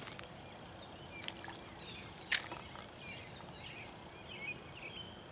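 Quiet outdoor evening ambience with birds chirping now and then. A single sharp click about two seconds in is the loudest sound.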